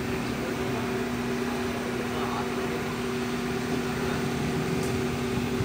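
Cable caterpillar haul-off running, its drive and gripper tracks giving a steady mechanical hum with two constant tones over an even din.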